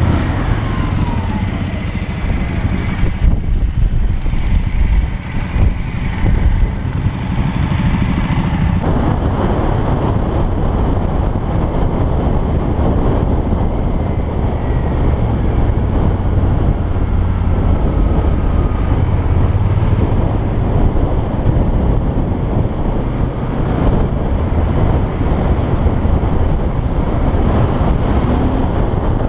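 Yamaha TDM 900's parallel-twin engine running under way, heard with heavy wind rush and buffeting on a helmet-mounted microphone. The wind noise grows fuller about a third of the way in.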